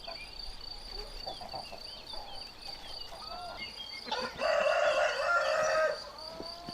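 A rooster crows once, starting about four seconds in and lasting about two seconds, over a steady high cricket trill and scattered small bird chirps.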